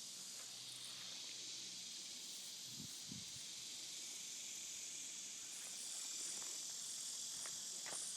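Steady, high-pitched outdoor chorus of insects, with a brief low sound about three seconds in.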